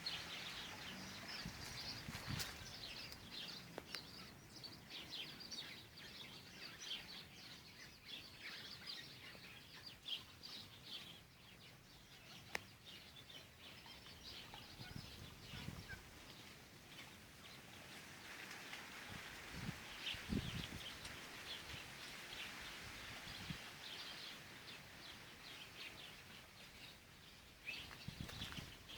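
Birds chirping steadily, many short faint calls overlapping, with a few soft low thumps here and there.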